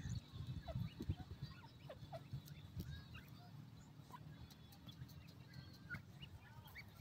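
Francolin (teetar) chicks peeping: faint, short chirps that slide in pitch, scattered a few times a second over a low rumble.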